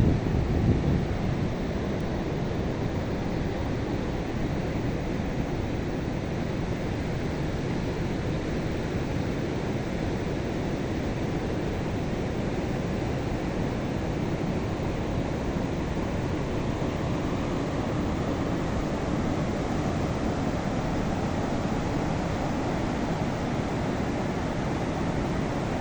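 Ocean surf: a steady rush of waves washing on a beach, a little louder in the first second.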